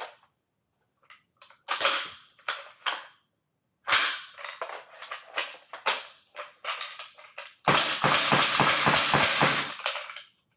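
Shell-ejecting airsoft AR-15 firing on full auto, cycling empty 3D-printed ABS shells: short, uneven bursts of sharp clicks, then a steady rapid run of shots lasting about two seconds near the end.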